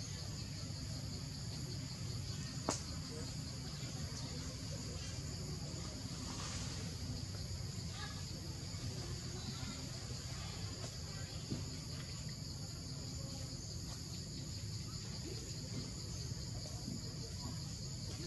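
Steady insect chorus, a continuous high-pitched buzz that holds the same pitch throughout, over a low steady rumble; one sharp click about three seconds in.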